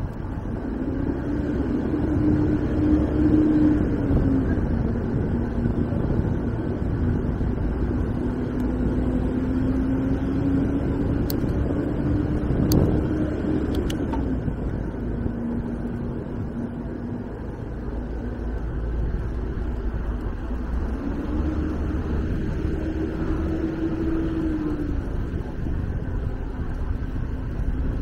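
Electric bicycle's motor whining under a steady rumble of wind on the microphone while riding uphill, the whine rising and dipping a little in pitch and dropping out briefly a few times. A few sharp clicks come about halfway through.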